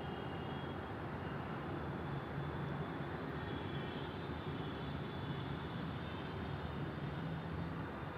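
Steady low background rumble with a faint hiss and a few thin high tones, unchanging throughout.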